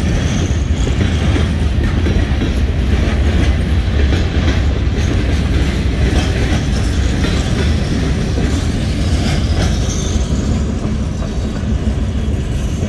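Freight cars rolling past close by: a steady rumble of steel wheels on the rail with clicks over the joints. Short high wheel squeals rise just after the start and again about ten seconds in.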